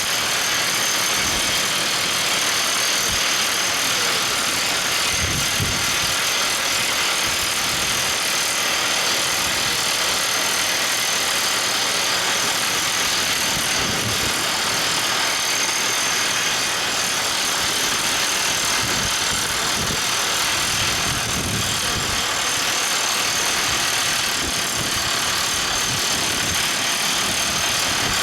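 Everdigm ECD45E top hammer drill rig running: a steady, even machine noise that holds at one level throughout.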